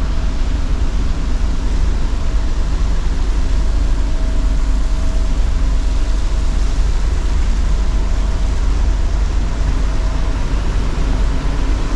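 Wind buffeting the microphone on a ship's open top deck: a loud, steady rushing rumble that flickers in strength, with a faint steady hum in the middle.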